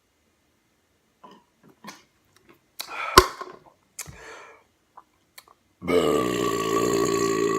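A man's big, long burp after shotgunning a can of beer, starting about six seconds in and held at a steady pitch. Before it come small breathing and gulping sounds and one sharp knock about three seconds in.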